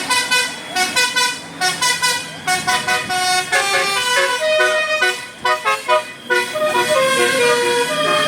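Telolet Basuri musical bus horn playing a tune: a quick run of short notes, then, from about three and a half seconds in, longer held notes.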